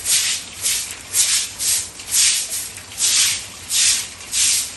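Short-handled grass broom sweeping water across a wet concrete floor, a quick swish about twice a second.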